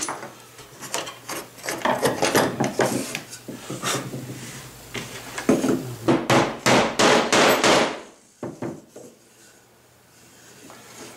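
Wooden knocks and scraping as hand clamps are loosened and a wooden workpiece is lifted off a CNC router's wooden bed. The loudest cluster of knocks comes about six to eight seconds in, and it goes much quieter near the end.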